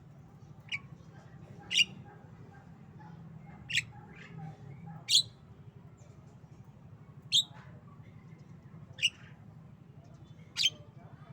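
Javan myna giving short, sharp calls, seven in all, spaced one to two seconds apart.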